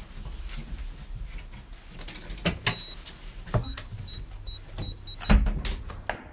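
A door being worked as someone comes in: scattered knocks and rustling, a run of short high electronic beeps, then a loud bang about five seconds in.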